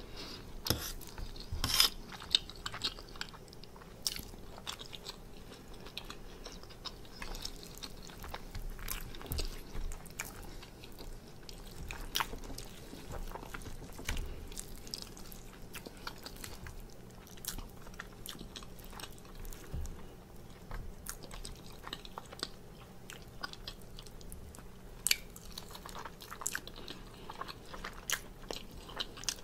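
Close-miked chewing and mouth sounds of a person eating tender pork roast, with scattered sharp clicks and clinks, the loudest about two seconds in, as a fork works the meat on a plate.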